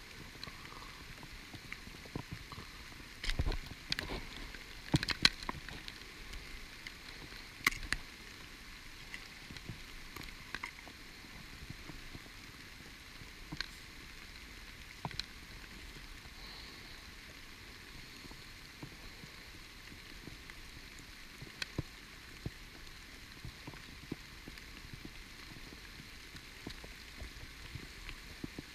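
Heavy rain falling steadily, with scattered sharp taps and knocks, a cluster of louder ones between about three and eight seconds in.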